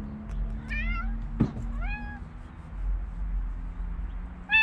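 Domestic cat meowing: two rising meows about a second apart, then a third, louder meow right at the end. A sharp knock sounds between the first two meows.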